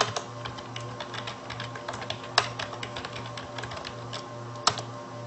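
Computer keyboard keys clicking in an irregular run as a web address is typed, with a couple of louder key strikes, over soft background music.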